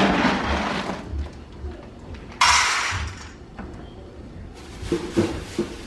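Dry dog kibble scooped out of a plastic food bin and poured into a metal bowl. There is a rustle of scooping at the start, then a loud rattling pour lasting under a second about two and a half seconds in, and a few knocks near the end.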